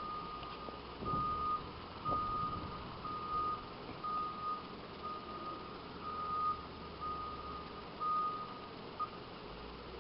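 Reversing alarm of a snowplow vehicle backing up during its turn: a single-tone beep about once a second, about nine beeps that stop shortly before the end, over a low rumble.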